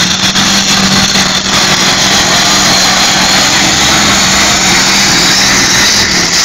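Loud, steady engine of a modified pulling tractor running flat out under full load as it drags the weight-transfer sled.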